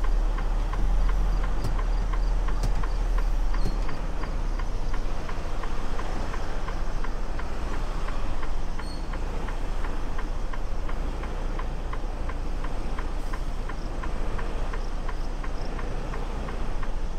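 Freightliner Cascadia semi-truck's diesel engine running low and steady, heard from inside the cab as the rig backs slowly into a dock, with a fast, even ticking throughout. The engine sound drops a little about nine seconds in.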